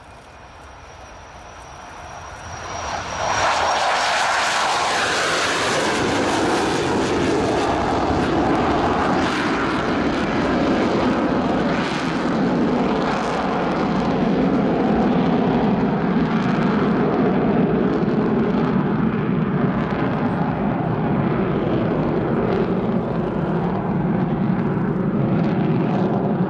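English Electric Canberra PR9's twin Rolls-Royce Avon turbojets at take-off power as it lifts off and climbs away. The jet roar swells sharply about three seconds in, then stays loud and steady.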